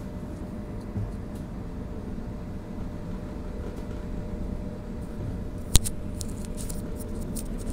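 Tram interior while running, a steady low rumble with a faint hum. A single sharp click comes about six seconds in, followed by a scatter of faint ticks.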